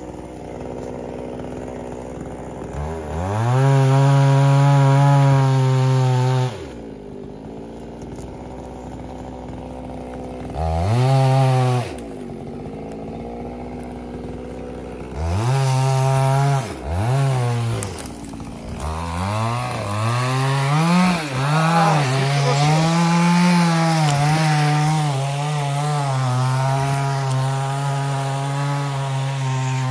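Two-stroke chainsaw idling, revved to full throttle in three short bursts, then held at high revs from about 19 seconds in, its pitch wavering and dipping as it cuts into wood during tree thinning.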